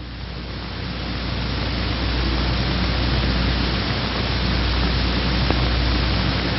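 Engine running, heard as a steady low rumble under an even hiss; it swells over the first two seconds or so, then holds.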